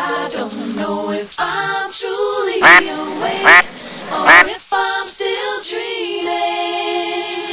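Three loud duck quacks, a little under a second apart, over a song with a sung melody.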